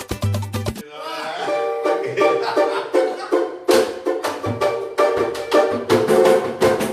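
Samba band playing. About a second in the heavy percussion and bass drop away, leaving a strummed cavaquinho carrying the tune, with percussion strokes and bass coming back in later.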